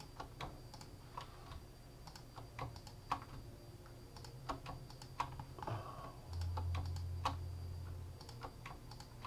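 Irregular clicks of a computer mouse and keyboard, used to select polygons one by one in a 3D modelling program. A low hum joins in for about two seconds past the middle.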